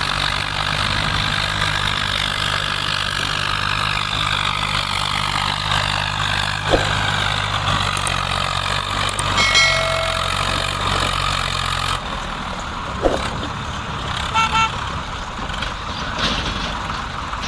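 Swaraj 744 FE tractor's diesel engine running hard under load while hauling a trolley heavily loaded with logs up a slope, a steady low drone with a slowly falling whine above it. About twelve seconds in the drone gives way to a rougher, noisier engine sound, and short high tones sound about ten seconds in and again shortly after.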